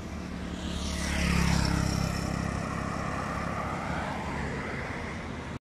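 Road traffic passing close by on the road: engine hum and tyre noise swell to a peak about a second and a half in, then fade. The sound cuts off abruptly just before the end.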